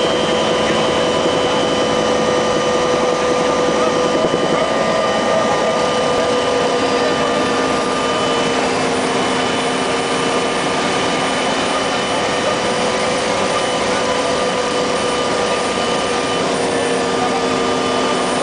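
UH-1H Huey helicopter heard from inside the cockpit: the turboshaft engine's steady whine over a constant wash of rotor and airframe noise, one tone sagging slightly in pitch as it goes. It is an autorotation descent.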